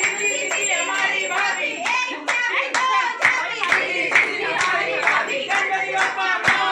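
A group of voices singing a devotional aarti to Ganesha, with hands clapping along at a steady beat of about two to three claps a second.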